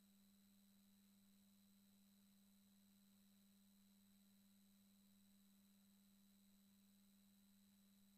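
Near silence, with only a faint steady low hum and a fainter high whine.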